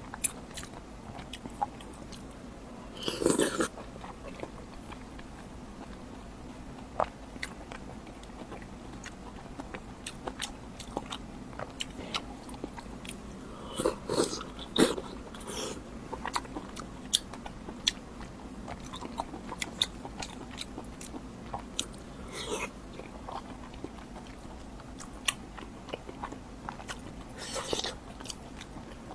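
Close-up eating sounds: chewing and biting with crunchy bites and many small wet mouth clicks, rising to louder bursts of bites a few times.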